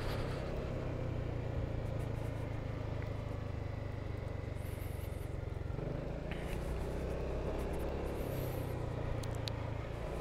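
Honda Forza 250 scooter's single-cylinder engine running steadily as it rides off, a low even hum under road and wind noise.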